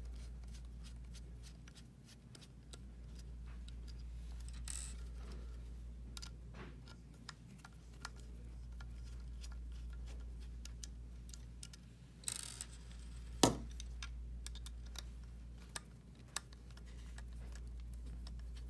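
Small scattered clicks and ticks of a Phillips screwdriver working screws out of a plastic ROV thruster housing, with brief scrapes of handling and one sharper click about two-thirds of the way through, over a steady low hum.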